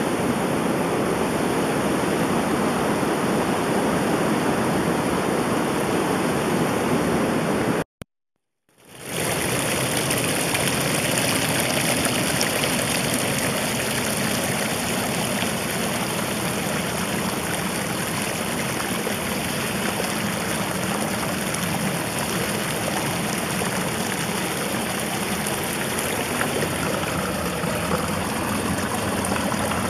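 Steady rush of flowing water, like a fast stream, cut off briefly about eight seconds in before resuming.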